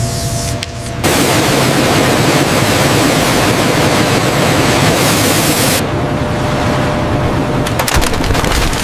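Loud, steady roar of paper-machine noise that cuts in abruptly about a second in. Near the end comes a quick run of sharp cracks and crashes.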